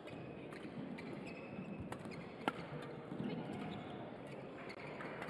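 Badminton rally: rackets striking the shuttlecock with a series of sharp pops, the loudest about two and a half seconds in, among short squeaks of court shoes on the mat and the echo of a large hall.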